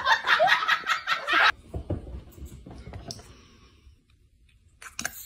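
A person laughing in quick repeated bursts, stopping suddenly about a second and a half in; after that only a faint low rumble.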